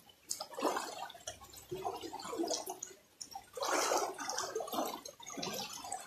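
Shallow river water splashing as legs kick and move in it, in several uneven bursts, the loudest about four seconds in.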